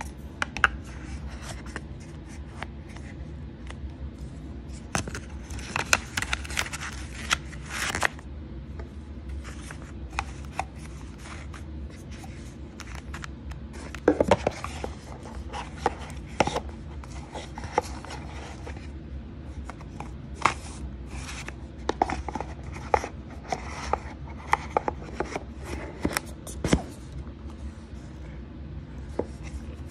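Cardboard gift box and its packaging handled close to the microphone: scattered taps, scrapes and rustles, denser about six to eight seconds in, with a few sharp knocks around fourteen seconds.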